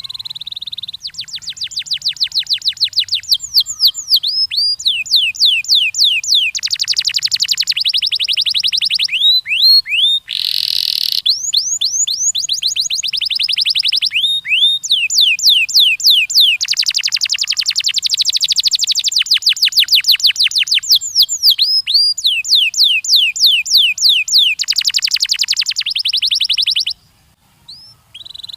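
A canary singing a long song of rapid trills and repeated sweeping whistles, switching from one trill to the next every second or two, with one short pause near the end.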